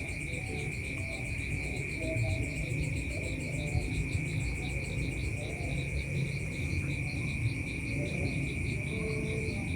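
Night insect chorus of crickets: one steady, unbroken high trill, with a fainter pulsing chirp above it, over a low rumble.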